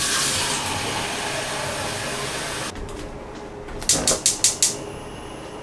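Water running steadily from a kitchen tap, stopping partway through. Then a gas stove's spark igniter clicks rapidly about five times as a burner is lit under a pot.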